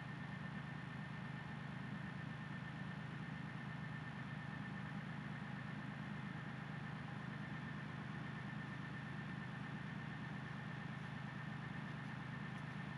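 Kioti 4010 tractor's diesel engine idling, a steady low hum that does not change.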